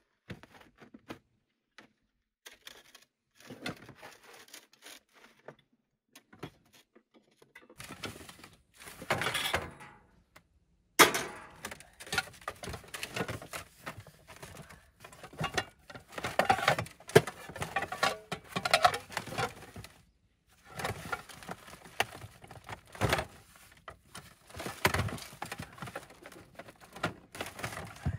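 Camp cooking gear being handled and rummaged through: scattered knocks, clinks and rustles, sparse at first and busier from about eight seconds in, with one sharp knock soon after.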